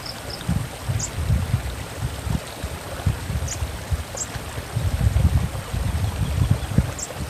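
A stream of running water with a low, surging rumble, over which an olive-backed sunbird gives about six short, high, thin chip calls, scattered singly and in a quick pair.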